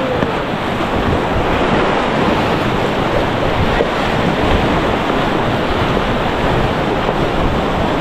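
Loud, steady rush of whitewater around an inflatable raft running a river rapid, with wind buffeting the microphone.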